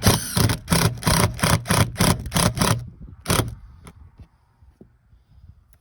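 A quick, even run of sharp knocks, about four or five a second, stopping about three seconds in, with one more knock just after.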